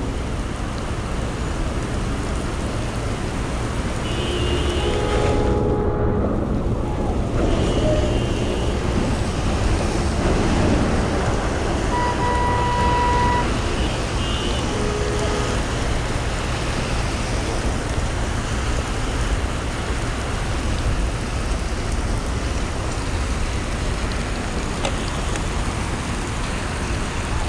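Steady wet road noise and wind on the microphone while riding a bicycle through city traffic in the rain. A few short, steady high tones come through between about four and sixteen seconds in.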